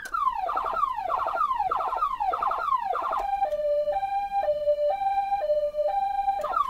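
Galls Street Thunder electronic siren being run through its tones: a quick falling sweep repeated about twice a second, then, about three seconds in, a two-tone hi-lo that switches pitch about twice a second, and falling sweeps again near the end.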